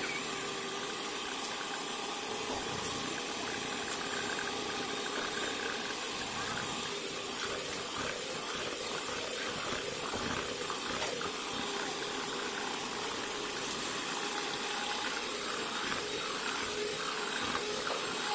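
Miyako electric hand mixer running steadily, its beaters whisking a thin batter in a plastic bowl, with a constant motor hum under the whir.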